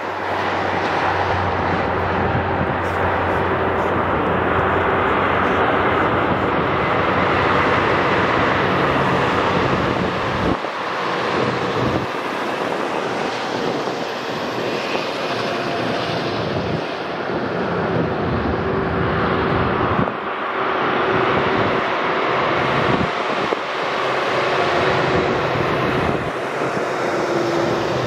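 Interstate traffic on a mountain grade: a tractor-trailer and cars passing below, giving a steady rush of tyres and engines with a faint engine drone in it.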